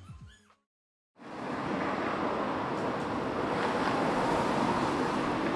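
Background music fades out, a brief gap of silence, then a steady rushing noise fades in and holds.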